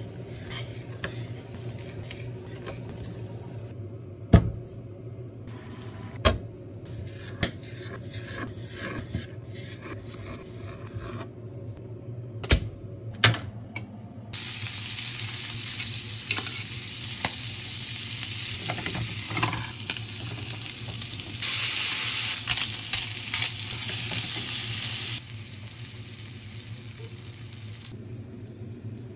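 A few sharp knife knocks on a wooden cutting board as squid is cut. From about halfway, butter and squid sizzle steadily in a hot sandwich maker, loudest about three-quarters of the way through.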